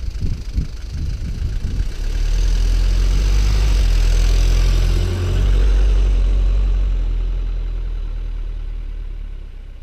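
An older sedan drives past close by and away down the road. Its engine and tyre noise builds, is loudest around the middle as it passes, then fades steadily as it goes off into the distance.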